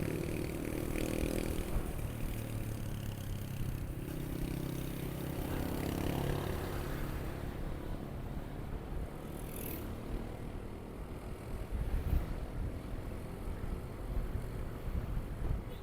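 Motorcycle engine running while riding, with road and wind noise; the engine note rises over the first several seconds, then settles lower. A short hiss about ten seconds in.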